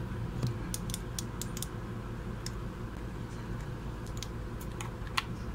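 Scattered small clicks and taps of a plastic speaker housing and circuit board being handled during reassembly, a cluster in the first two seconds and a sharper click near the end, over a steady low hum.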